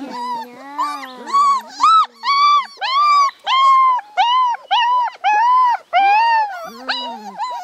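A puppy whining in a rapid string of short, high, arching cries, about two a second, each rising and falling. A lower drawn-out tone sounds beneath them for the first two and a half seconds and again briefly near the end.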